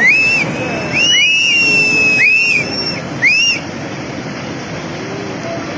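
A string of shrill whistles, each rising then falling, about six in the first three and a half seconds. They sound over a continuous rushing roar, the roar of the floodwater.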